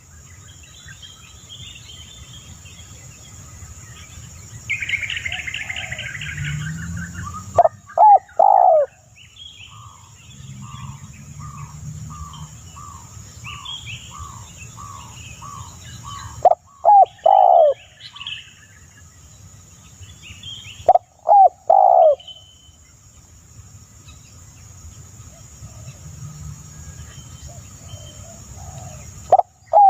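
Birds calling: loud, downward-sliding whistled notes in groups of two or three that come back several times, between them an even run of about a dozen short notes, a brief buzzy trill and scattered high chirps.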